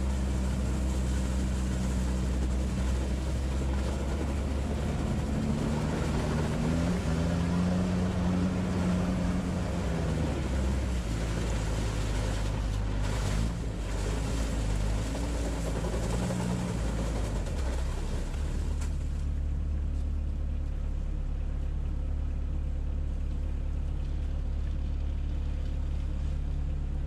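Sherp amphibious vehicle's small diesel engine running steadily, revving up for a few seconds about a quarter of the way in and then settling back.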